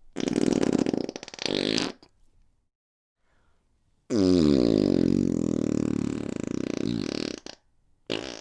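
Three fart sound effects. A sputtering fart of about two seconds comes first. After a pause there is a long fart of about three and a half seconds with a clear pitch that slides down at first, and a short blip near the end.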